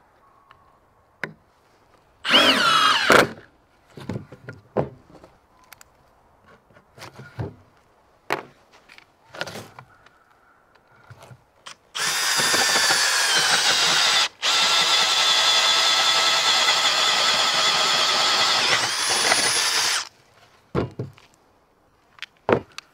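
Cordless drill boring through stacked 2x4 lumber: a short burst about two seconds in, then a long run of about eight seconds from halfway, cut for a moment once and rising in pitch just before it stops. Knocks and clatter of wood and tools being handled between runs.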